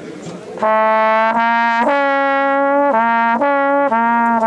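Trombone comes in about half a second in and plays a melody of held notes, one at a time, stepping up and down in its middle range.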